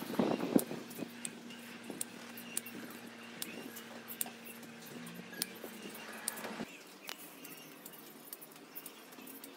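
Bypass pruning shears snipping through desert rose (adenium) branches: irregular sharp clicks and snaps, with a rustle of branches and leaves about half a second in.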